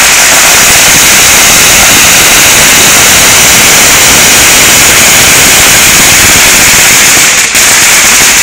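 A string of firecrackers going off in a dense, continuous barrage, so loud that it overloads the phone's microphone, with a brief break near the end.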